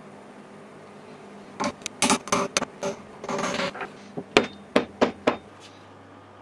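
Wooden wedge being tapped home into the slotted end of a small brass hammer's wooden handle: about a dozen sharp knocks over some four seconds, starting about a second and a half in, with a short rasp in the middle.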